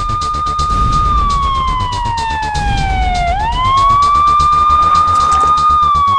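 Police siren wailing: a tone that holds, slides slowly down, sweeps quickly back up about three seconds in, and begins falling again near the end, over background music with a steady beat.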